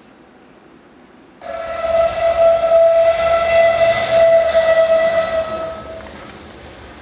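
One long, steady whistle blast with a hiss, starting suddenly about a second and a half in and dying away about a second before the end.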